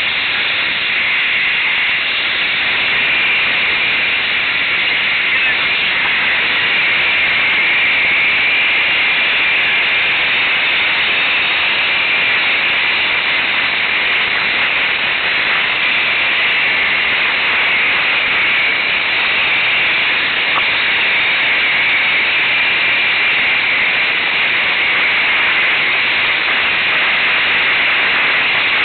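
Steady, loud hissing rush of an ATV ride picked up by an on-board camera microphone, wind and engine blended with no distinct engine note.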